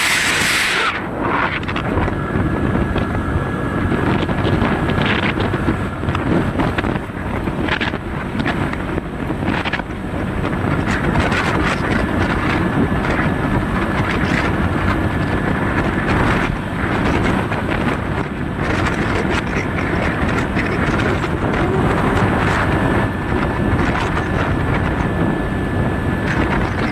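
Wind buffeting the microphone over a steady rumble of moving-vehicle noise, with a faint high whine that comes and goes.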